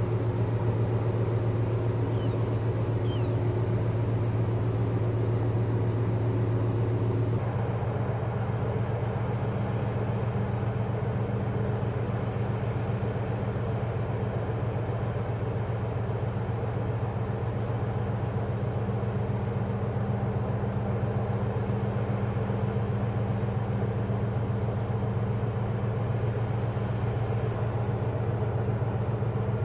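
Steady low drone of a large container ship's engines carried across the water: a deep continuous hum with a few steady tones above it. About seven seconds in the higher hiss drops away and the hum goes on unchanged.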